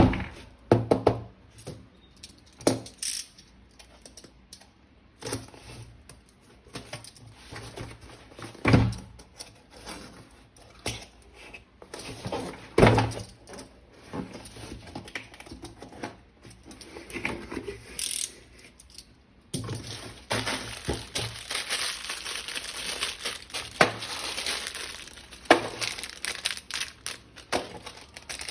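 Plastic packaging of a toy gun being unboxed: crinkling and tearing, with scattered clicks and knocks of plastic parts being handled. About two-thirds of the way through it turns into a longer stretch of continuous crinkling.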